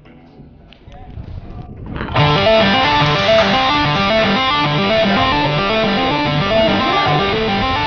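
Background music: after a quiet opening, a loud guitar-driven track with a steady rhythm kicks in about two seconds in.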